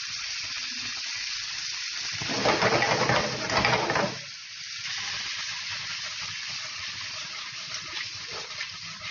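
Lentils with diced celery, carrot and onion sizzling steadily in oil in a frying pan, with a louder rush of noise for about two seconds a couple of seconds in. Near the end the pan is tossed, sending the lentils sliding.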